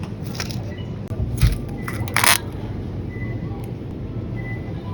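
Grocery packaging handled: a few short rustling, crinkling noises and a dull thump, the loudest crinkle about two seconds in, over a steady low background hum.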